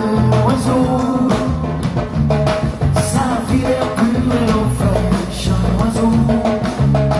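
Live band playing an upbeat song with a steady drum beat and bass, a man singing over it.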